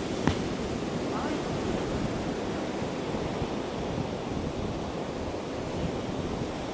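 Steady rush of ocean surf breaking on a beach, mixed with wind buffeting the microphone. A single sharp click sounds just after the start.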